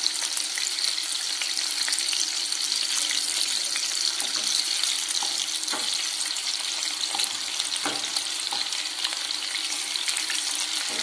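Masala-coated yellowfin tuna pieces and curry leaves sizzling steadily in hot oil in a frying pan, with a few light knocks and scrapes of a wooden spatula as the pieces are turned once one side has browned.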